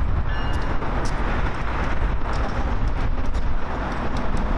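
Steady low rumble of a heavy vehicle, with a brief faint high squeal about half a second in.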